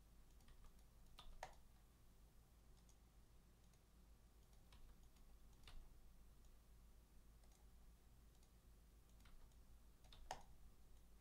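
Near silence: faint room tone with a handful of faint, sharp, scattered clicks, the loudest about a second and a half in and again near the end.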